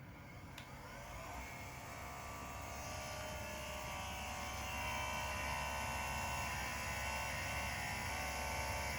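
2021 Mini Cooper SE's air conditioning starting up: a whining hum that rises in pitch and loudness over the first few seconds, then holds steady. This is the abnormal AC noise reported as a fault.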